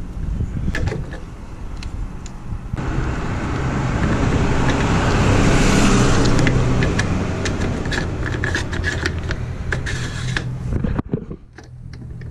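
A motor vehicle's engine running, swelling to its loudest about halfway through and dropping away sharply near the end, with light clicks and knocks over it.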